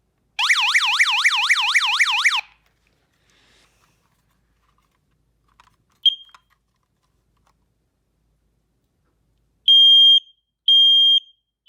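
A combination smoke and carbon monoxide alarm running its self-test: a loud, rapid warbling electronic sweep for about two seconds, a single short chirp around six seconds in, then near the end the shrill steady beeps of the smoke-alarm pattern, each about half a second long, sounding one after another.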